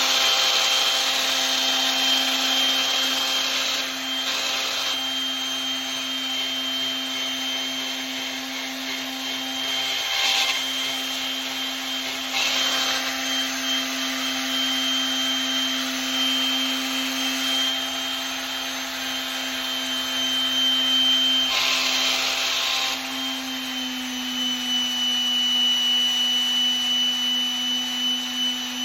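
Electric sander running steadily with a constant hum and whine, with several stretches of louder scraping as the paper is pressed against the brass putter head. The motor's pitch drops slightly a little after two-thirds of the way in.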